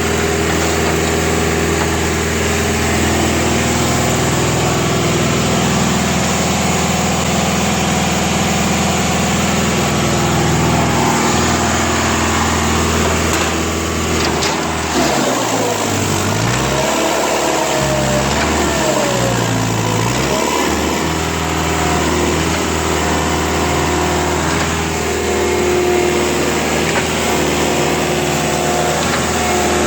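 Olin 575 trailer concrete pump running steadily under load while pumping concrete. About halfway through, its engine note dips and recovers twice.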